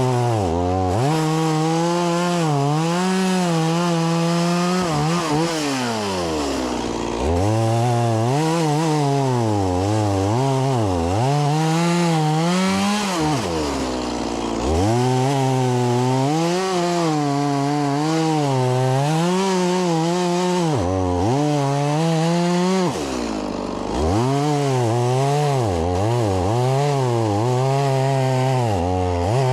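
Stihl MS 180 C-BE two-stroke chainsaw cutting through oak and maple logs at full throttle, its note wavering under load. Three times it drops off briefly and revs back up between cuts.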